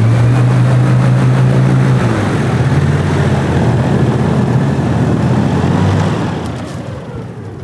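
Airboat engine and propeller running steadily, then easing off near the end as the boat slows.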